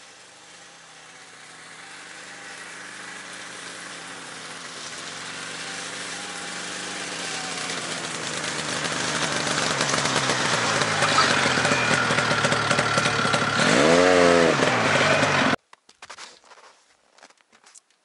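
Snowmobile engine running as the machine drives up, growing steadily louder as it closes in, with a short rev that rises and falls near the end. It cuts off abruptly, followed by a few faint knocks.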